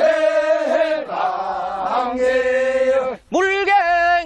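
Men's chorus of a Korean farmers' work song (nongyo) holding the drawn-out refrain "bangul" on long sustained notes. A little past three seconds in, a solo male lead voice starts the next line with a wavering, ornamented pitch.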